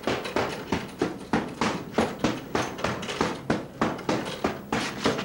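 Boxing-gloved punches landing on a hanging heavy punching bag in a fast, steady run, about three blows a second.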